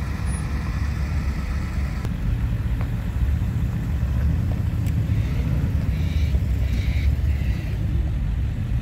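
Classic Ford F-series pickup trucks driving past one after another on a gravel track, their engines giving a steady low rumble that grows a little louder about two seconds in as the nearer trucks pass.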